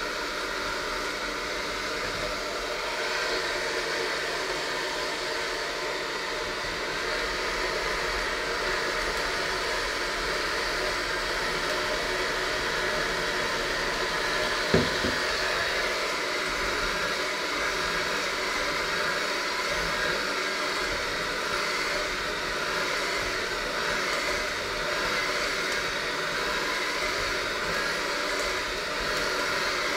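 Electric hand mixer running steadily with a whirring motor, its beaters churning a crumbly flour dough in a stainless steel bowl. A single sharp knock comes about halfway through.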